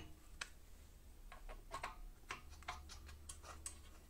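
Irregular light clicks and taps of the grinding wheel's metal flange and washer being handled and fitted onto the bench grinder spindle, thickest from about a second in to near the end.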